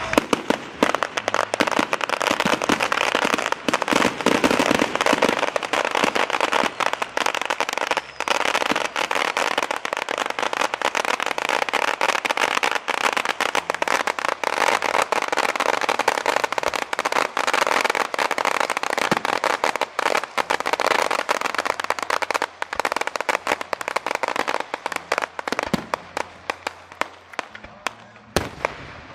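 Fireworks going off in a dense, rapid crackle of pops, thinning to scattered separate bangs near the end.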